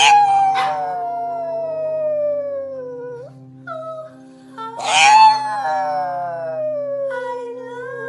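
Pug howling: two long howls, one at the start and a second about five seconds in, each starting loud and sliding slowly down in pitch over about three seconds.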